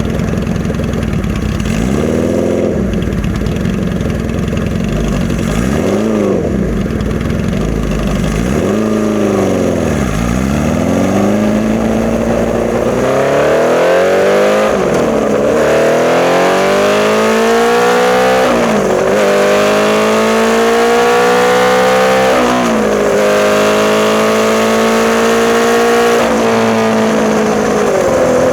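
1981 Honda CB650 inline-four through a Hindle 4-2-1 exhaust, running on Mikuni VM34 carburettors and being ridden. The engine note rises and falls several times, then climbs in long pulls, the pitch dropping sharply and climbing again about every four seconds as it shifts up through the gears.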